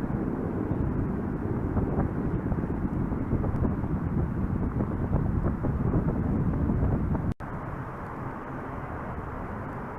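Loud outdoor rumbling noise, fluctuating and strongest in the low range, with no clear pitch. About seven seconds in it drops suddenly to a lower, steadier level.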